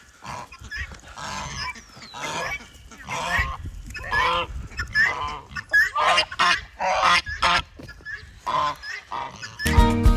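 Farm fowl calling over and over, about one or two calls a second. Music comes in near the end.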